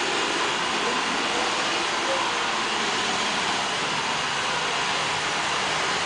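Roomba robot vacuum running on a hardwood floor: a steady whir of its vacuum motor and brushes.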